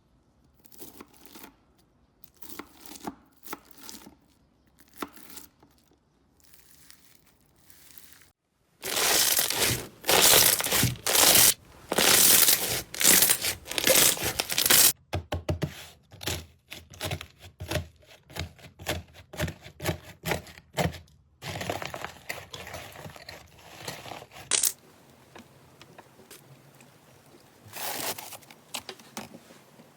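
Slime being pressed and pulled by hand, making runs of close crackling and crinkling sounds across several short clips. The loudest and densest crackling comes from about nine to fifteen seconds in.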